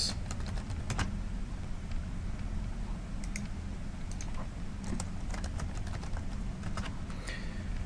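Computer keyboard typing: scattered, irregular keystrokes over a low steady hum.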